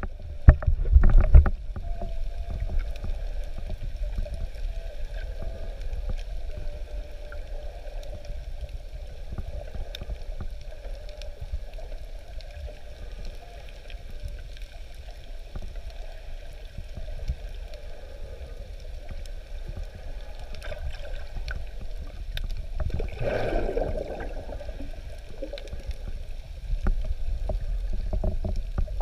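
Underwater sound picked up by a camera in a waterproof housing: a steady low rumble of moving water. A few knocks come in the first second or so, and a brief louder gurgle comes about 23 seconds in.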